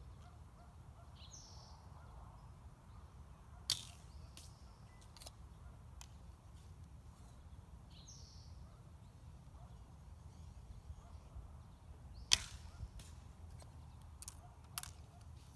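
Two shots from a 50 lb English longbow, each a sharp snap of the string on release, about eight and a half seconds apart, with a few fainter clicks between. A bird gives a short falling chirp twice.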